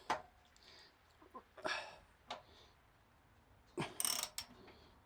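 Hand tools at work on bolts: a few sharp clicks and two short rasping bursts from a socket wrench as paddock bobbin bolts are tightened.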